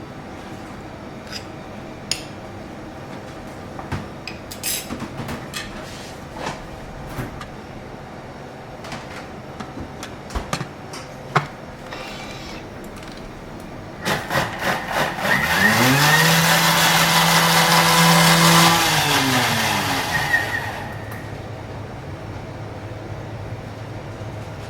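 Clicks and knocks of handling, then about fourteen seconds in an electric blender starts with a few short pulses, runs up to speed, holds steady for a few seconds and winds down, blending the liquid ceviche marinade.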